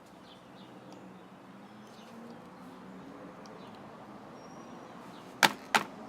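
Two sharp clicks close together near the end, from hard plastic and small metal parts of a computer mouse being handled during disassembly, over faint scraping and handling noise.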